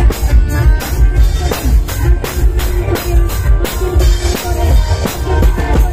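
Loud music with a heavy, steady bass-drum beat of about two to three beats a second, played through a big parade sound system.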